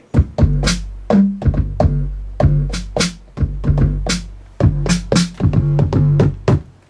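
Roland 808 drum-machine kit samples played live from the pads of a Native Instruments Maschine Mikro: a deep, long-ringing kick boom under a run of sharp snare and hi-hat hits.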